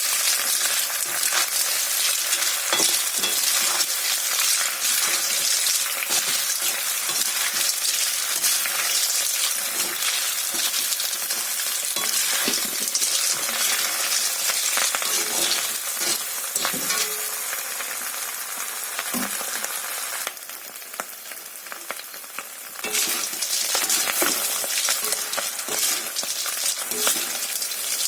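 Food sizzling in hot oil in a pan while being stirred, with a utensil clicking and scraping against the pan. The sizzle drops for about two seconds past the middle, then comes back.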